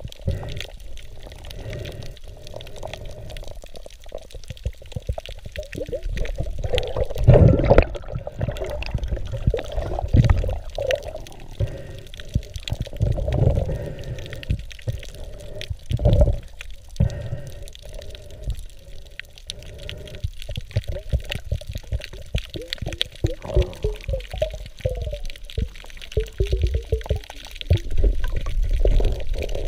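Water rushing and bubbling against an underwater camera as a diver swims, in uneven surges.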